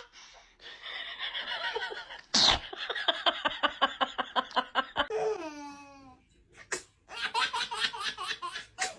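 A baby sneezes sharply about two seconds in, followed by a run of quick, pulsing laughter. A voice slides down in pitch, then a second burst of laughter comes near the end.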